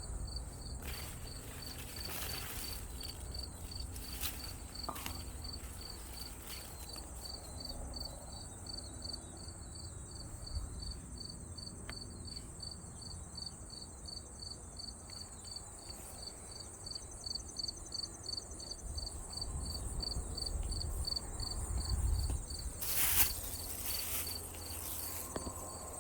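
Insects chirping outdoors: a high-pitched pulse repeating about three times a second without a break, over a steady high-pitched insect drone. A low rumble and a few brief rustles or knocks sit underneath, the loudest near the end.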